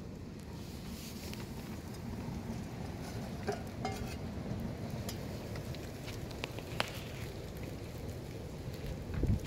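Small fire burning in a perforated tin-can camp stove: a steady low rumble with scattered light crackles and clicks.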